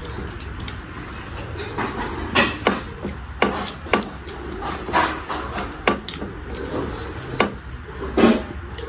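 Close-up eating sounds: fingers mixing rice and curry on steel plates and mouths chewing, with about eight irregular sharp clicks and short crunches over a low steady hum.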